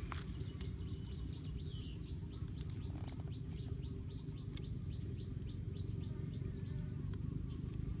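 Short, high chirps of a small wild creature, repeated about three times a second for several seconds from about two seconds in, over a steady low rumble.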